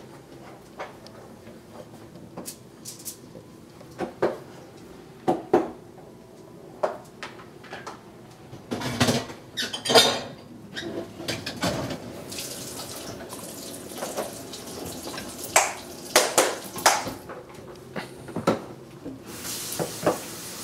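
Kitchen clatter: dishes and plastic food containers knocking and clinking in scattered, irregular knocks, busiest in the middle and latter part, with a short hiss near the end.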